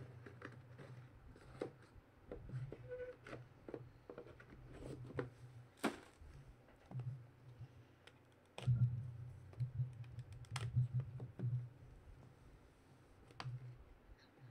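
Hands handling and opening a cardboard trading-card box, with scattered clicks, taps and scrapes of the box and lid. Low rubbing runs for a few seconds a little past halfway.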